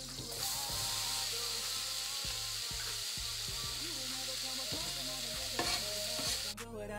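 Chopped onion, shallot and celery sizzling steadily as they fry in hot fat in a pot, starting about a third of a second in as they drop into the pan. The sizzle cuts off abruptly just before the end and music takes over.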